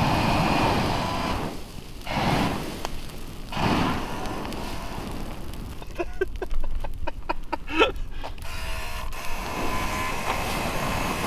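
Pulsefire flamethrower mounted under a rifle, shooting three bursts of flame in the first four seconds. A run of sharp crackles and clicks follows in the middle, then a quieter, longer jet of flame near the end.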